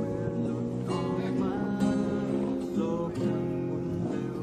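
Acoustic guitar music, plucked and strummed.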